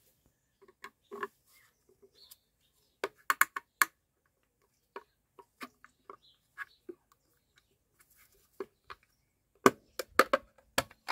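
Red plastic trim removal tool prying at an alloy wheel's centre cap: scattered clicks and taps of plastic on plastic and metal, with a louder cluster of clicks near the end as the cap is pulled free by hand.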